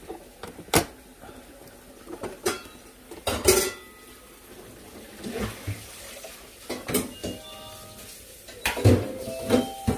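A Cuckoo pressure rice cooker handled: its lid shut and set with a few sharp knocks and clicks, then its control-panel buttons pressed. Short electronic beeps answer late on.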